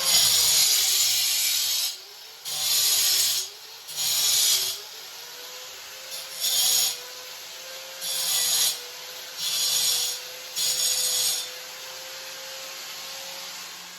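Hand sawing during the installation work: about seven separate rasping runs, the first about two seconds long and the rest half a second to a second, with a faint steady hum underneath.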